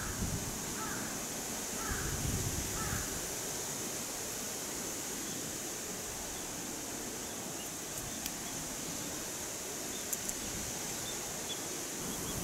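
Outdoor forest ambience: a steady high hiss runs throughout. Faint bird calls come about a second apart in the first few seconds, and a few light clicks come later.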